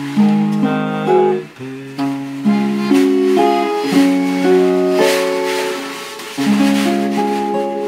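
Acoustic f-hole guitar with chords picked and strummed about twice a second, closing the tune. Near the end a last chord rings out and fades.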